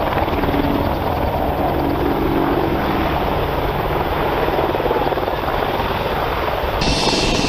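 AH-64 Apache helicopter running, its rotor and turbine engines giving a steady, loud, dense noise. Near the end the sound shifts, with a steady high whine coming in.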